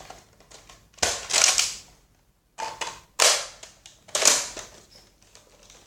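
Sharp plastic clacks and rattles from a Nerf Retaliator blaster being handled as its small clip and upgrade parts are worked. There are a few separate clacks, the loudest about a second in and again around three and four seconds in.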